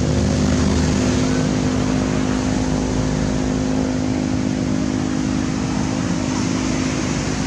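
A steady mechanical hum: several constant low tones over an even hiss, unchanging in level.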